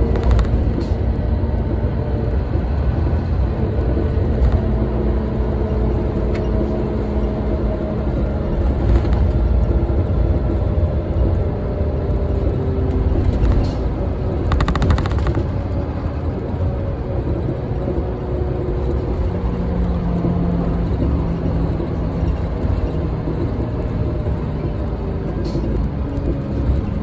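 Tokyu city bus under way, heard from inside the cabin: steady engine and road rumble, with the engine note drifting slowly up and down in pitch. A few brief hissing noises come through, the clearest about fifteen seconds in.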